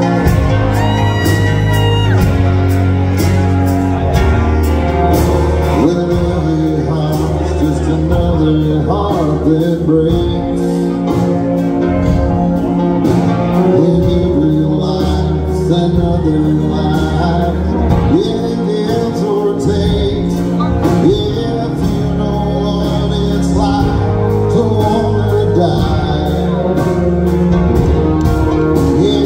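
Live country band with piano and bass guitar playing with a steady beat, the melody line wavering above it.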